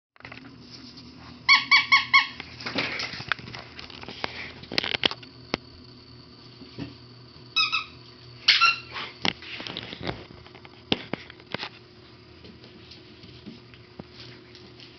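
A squeaky dog toy squeezed about five times in quick succession, then a few more squeaks around the middle, among scattered light taps and scuffles on a hard floor.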